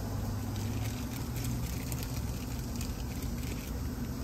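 Steady low drone of a motor or engine running, with faint light ticks over the middle seconds.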